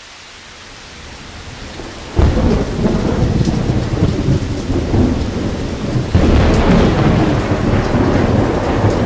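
Thunderstorm: steady rain that swells over the first two seconds, then two heavy rolls of thunder, the first crashing in about two seconds in and the second about six seconds in, each rumbling on afterwards.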